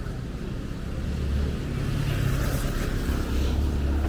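Wind buffeting the microphone: a low rumble that swells and drops in gusts over a steady outdoor hiss.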